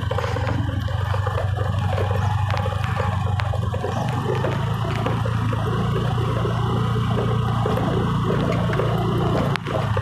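Two-wheeler engine running steadily at low, even revs as the bike rolls slowly down a steep road.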